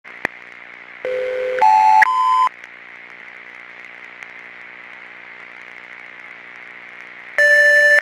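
Retro computer terminal powering on: a click, then a steady electrical hum with hiss, a rising series of three electronic beeps about a second in, and one louder beep near the end.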